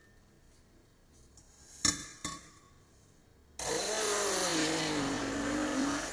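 Two short knocks, then a small electric kitchen appliance motor switches on suddenly a little past halfway and runs loudly, its pitch wavering as it works.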